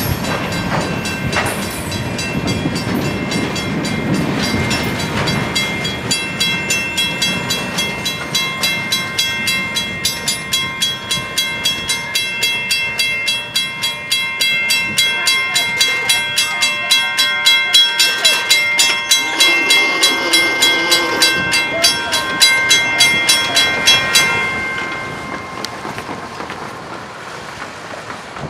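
Cars of a Union Pacific rail train rolling past close by: wheels clacking over the rail joints in a fast, even rhythm, with steady high ringing tones over it. The sound fades away near the end as the train goes by.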